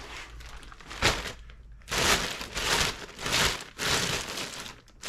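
Crinkling and rustling of crinkly material being handled, in several short bursts, with a sharp click about a second in.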